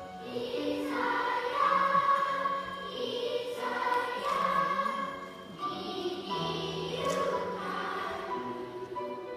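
Children's choir singing, holding notes in phrases with short breaks between them.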